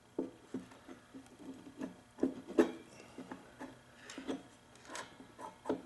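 Irregular small clicks, knocks and scrapes of metal parts being handled as a small two-stroke engine's cylinder is worked down over the piston and its rings, with two sharper knocks about two and a half and five seconds in.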